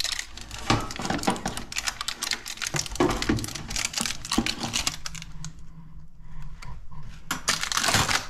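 Baking parchment crinkling and rustling, with many light clicks and knocks, as a paper-lined loaf is lifted out of an air-fryer oven and set on a wire cooling rack. It goes quieter for a moment, then there is a longer burst of rustling near the end.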